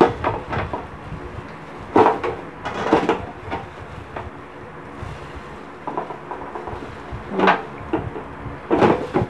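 Gloved hands handling a raw deboned chicken in a disposable aluminium foil tray: a few separate crinkles and knocks of the foil, the loudest about two, three and seven and a half seconds in, over a faint steady hum.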